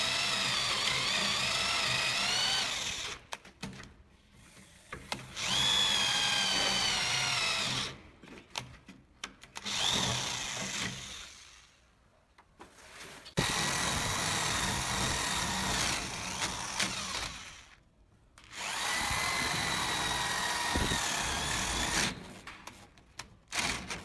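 Corded electric drill boring holes into a wooden door for a lock, running in about six bursts of a few seconds each with short pauses between. Its whine wavers in pitch as the bit loads up in the wood and falls as it winds down at the end of each burst.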